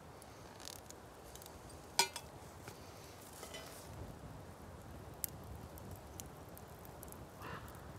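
Metal frying pan clinking against the folding wood stove as it is handled and set on top, with one sharp ringing clink about two seconds in and a few lighter clicks after.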